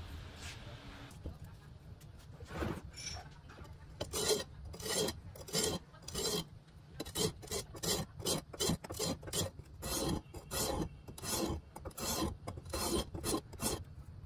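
Kukri blade, forged from an old file, stroked back and forth across a sharpening stone. After a couple of seconds it becomes a quick run of scraping strokes, about two a second.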